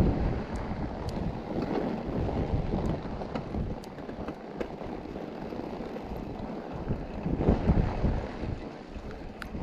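Wind rushing over the microphone of a camera riding on a mountain bike: a low, gusty rumble that swells near the start and again about seven and a half seconds in, with a few faint clicks.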